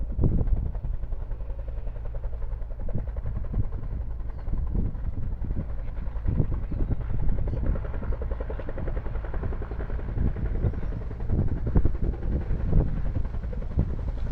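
Firefighting helicopter hovering low, its rotor blades beating in a rapid, steady train of pulses, as it holds over the water to fill its slung bucket.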